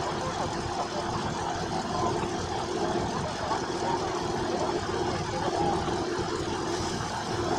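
Small diesel shunting locomotive's engine running steadily with a constant hum, with faint voices from onlookers.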